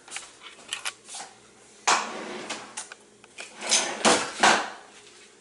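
A wooden kitchen drawer being pulled open and handled, with knocks and rattling. There is a sharp knock about two seconds in and the loudest clatter around four seconds in.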